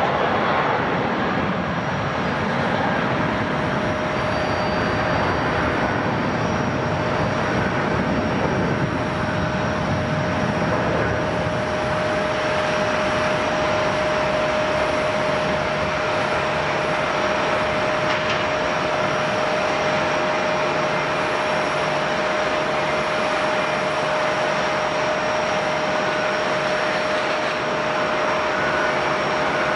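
Jet airliner engines running steadily at low power: a continuous rush with a constant whine that sets in about a second in.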